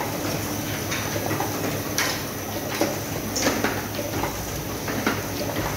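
Chinese-made 16x22 offset printing press running: a steady mechanical hum with sharp clacks from its moving parts, about one or two a second at an uneven spacing.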